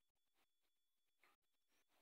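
Near silence: only a faint background hiss.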